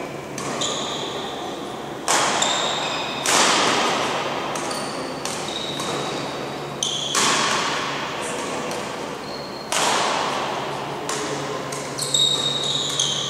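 Badminton play on other courts of a large sports hall: a handful of sharp, irregularly spaced racket-on-shuttlecock hits, each ringing on in the hall's echo, with short high shoe squeaks on the court floor.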